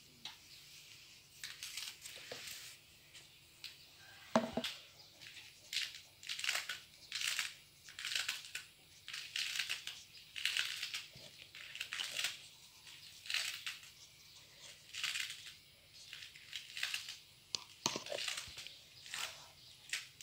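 A hand rubbing and tossing a dry mix of chopped walnuts and herbs on a wooden board: gritty, crunchy rustles repeating about once a second, with one sharp knock about four seconds in.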